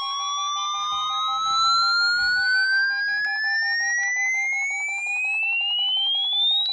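Electronic alarm tones sounding together: one tone slides steadily upward in pitch throughout and turns to fall at the very end, over a lower tone that pulses rapidly.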